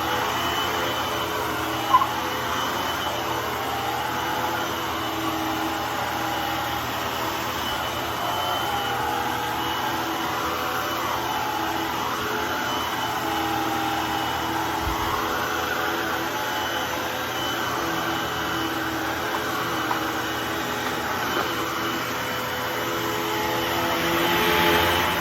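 Hoover WindTunnel T-Series bagged upright vacuum running steadily, with a squeak that wavers up and down in pitch; the owner doesn't know what makes the squeak and thinks it is probably the wheels needing oil. A sharp click about two seconds in.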